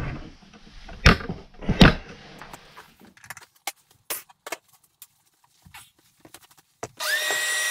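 Scattered knocks and clicks of tools and debris being picked up off the floor. Near the end a shop vacuum switches on, its motor spinning up to a steady whine.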